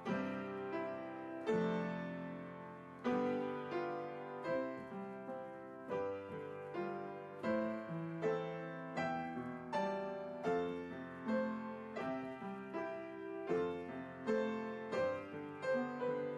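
Background piano music: notes and chords struck and left to ring, slow at first, coming faster from about halfway through.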